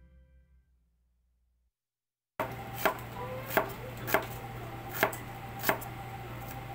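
Knife chopping food on a cutting board: five sharp strokes, roughly two-thirds of a second apart, starting about two and a half seconds in over a low steady hum.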